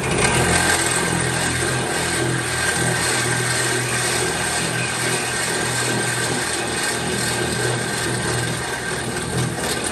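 Power drill running steadily under load, boring through the sheet steel of a car's trunk lid from the underside to enlarge a pre-drilled hole.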